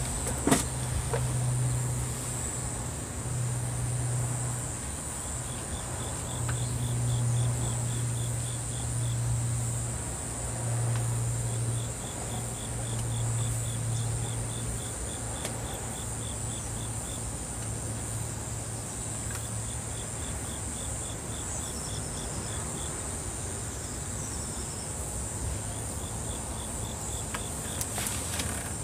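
Insects chirping by the water: a steady high-pitched trill, with runs of rapid pulsed chirps at about four or five a second that come and go. Under them is a low hum that fades about halfway through.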